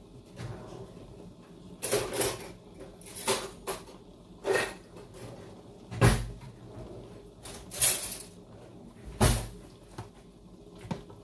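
Kitchen knocks and clatter from things being handled: about six separate knocks a second or two apart, two of them heavier, dull thuds.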